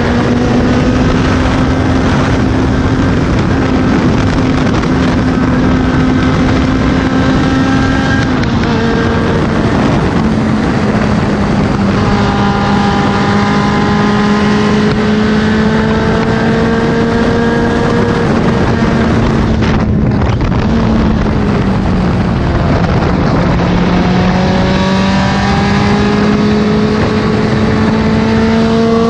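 Toyota Levin BZR AE111's 20-valve 4A-GE four-cylinder running hard at high revs under a steady rush of wind and road noise. Its pitch holds nearly steady, steps down a little about eight seconds in, sags through the middle with a brief dip about twenty seconds in, then climbs steadily near the end.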